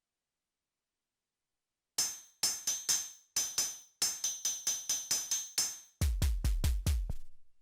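Yamaha MODX/Montage synthesizer playing a percussive FM patch from its DX7 library, like a drum machine. It starts about two seconds in with a quick run of bright, metallic, ringing hits, then switches to deep, booming bass hits near the end.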